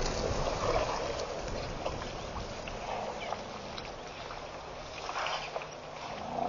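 Steady outdoor ambience at a bush waterhole, a noisy hiss with faint scattered rustles and clicks.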